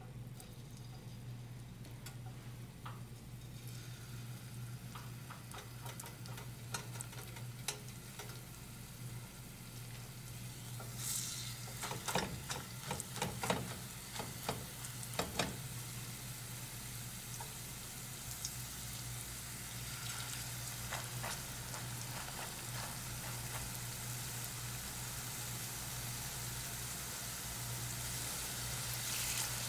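Shredded potato latkes frying in oil in a stainless steel skillet: a light crackle, sharper spitting around the middle as mounds of potato go into the oil, then a denser, steadier sizzle that grows toward the end. A steady low hum runs underneath.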